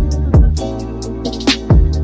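Background music with a beat: deep bass-drum hits that drop in pitch, a few per second, under sustained notes and light high ticks.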